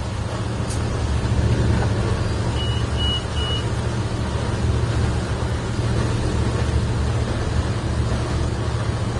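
Patrol boat's engines running steadily under way, with a constant rush of wind and water. About three seconds in, three short high beeps sound in quick succession.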